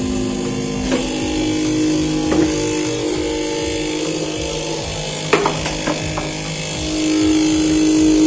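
Flush cistern's fill valve vibrating with a steady hum as the tank fills, its pitch stepping a couple of times, with a few light knocks. The noise comes from a rubber washer stuck in the valve, which the plumber cures by turning the washer over.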